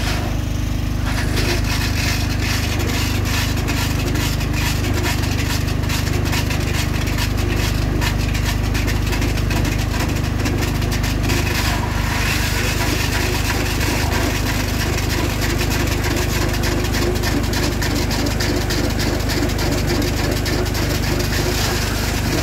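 Large water-cooled diamond core drill boring into rock, its motor running in a steady drone, with a dense crackle of grinding grit through the first half.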